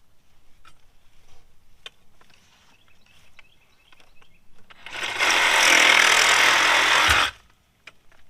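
A power tool cutting a short piece of plastic water pipe for about two seconds, starting quickly and cutting off abruptly, after a few seconds of light clicks from handling the pipe.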